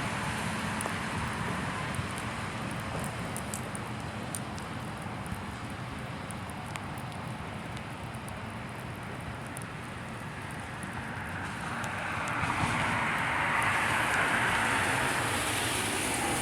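Road traffic on wet pavement: a steady tyre hiss that eases off, then a vehicle swelling up and passing near the end.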